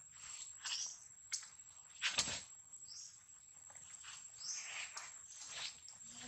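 Monkeys moving on dry leaf litter: soft rustles and a few sharp taps, with several short high chirps and a thin steady high insect whine behind.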